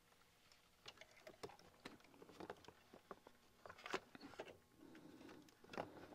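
Faint irregular clicks and knocks of a Lego crocodile locomotive's plastic bricks against a clear plastic storage bin and the other Lego train cars as it is squeezed in, with a sharper knock about four seconds in and another near the end.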